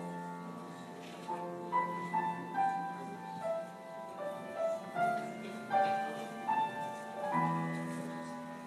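Soft piano playing a slow melody of single notes, each one fading before the next, with a deeper note added about seven seconds in.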